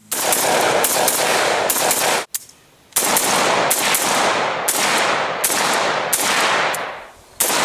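AK-74-pattern rifle fired rapidly in semi-automatic, about three shots a second, each crack trailing off in echo. Two strings of fire with a short break a little over two seconds in.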